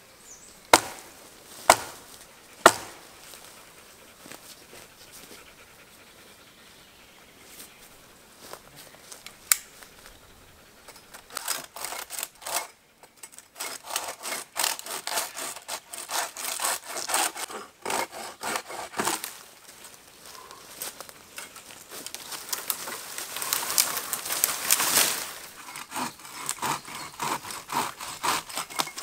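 Wood being sawn by hand: two long stretches of rapid back-and-forth saw strokes, after a few sharp knocks on wood near the start.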